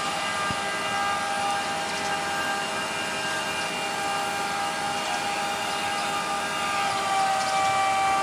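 Mobile crane's engine and hydraulics running steadily while it holds and lowers a suspended load: a constant mechanical drone with several steady whining tones.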